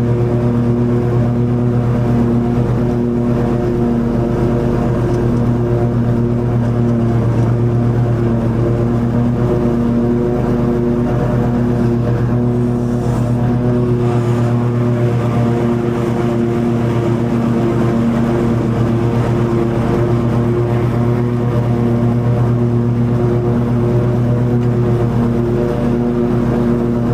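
Toro TimeCutter zero-turn mower's engine running at a steady, unchanging pitch while it mows long grass.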